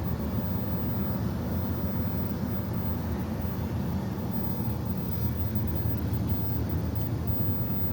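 Steady low rumble of running air-conditioning equipment, without pause or change.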